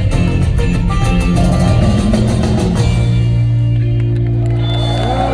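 Live rock band with guitars and drums playing loudly. The drum hits stop about three seconds in, and a held chord rings on.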